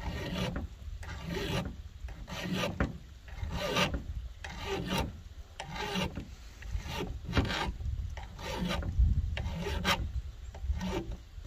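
Flat file rasping across a saw chain's depth gauges (rakers) through a depth-gauge tool, filing them down: a regular series of strokes, about one a second.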